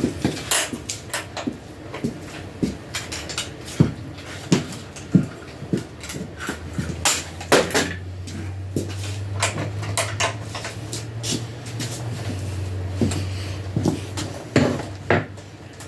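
Loose metal parts and hand tools clinking and knocking in irregular sharp clatters: bolts, washers and tools being handled and set in a metal tray during motorcycle teardown. A low steady hum runs under it from about six seconds in until near the end.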